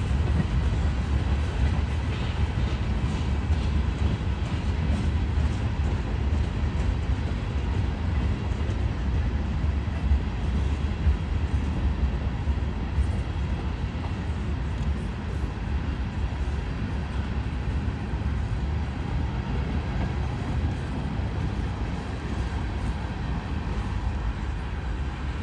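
Freight cars of a long Norfolk Southern train rolling past, a steady low rumble of steel wheels on rail with a few faint clicks.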